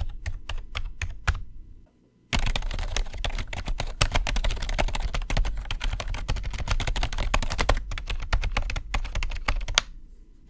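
Typing on a budget Bugha gaming keyboard from Five Below, its keys clicking. Separate keystrokes give way to a short pause about two seconds in, then a burst of fast, dense typing that slows back to separate keystrokes near the end.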